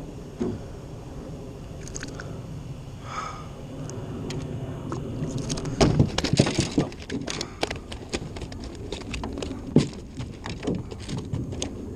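Scattered knocks, taps and rattles from a just-landed bass and fishing gear being handled on the floor of a small jon boat. The clatter starts about halfway through and is loudest near the middle and again near the end.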